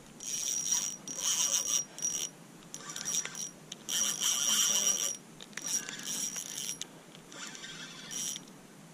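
Marine Sports Tiga 600 spinning reel buzzing in about nine irregular bursts, some brief and some over a second long, as a large hooked tilapia is fought on ultralight tackle: the drag giving line and the reel's gears working under load.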